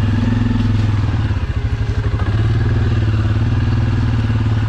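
Suzuki KingQuad ATV engine running steadily at low speed, with a fast even chug and light clatter from the machine on rough ground.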